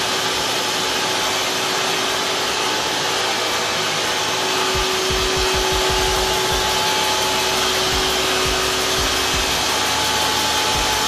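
Steady, loud rushing hum of machinery in a fire-sprinkler pump room, with a faint steady tone running through it. Uneven low rumbling joins about five seconds in.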